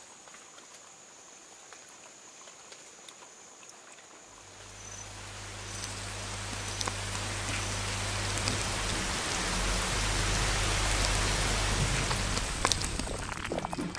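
Rain falling, a steady hiss scattered with drop ticks that swells in about four seconds in and grows louder, over a low steady hum.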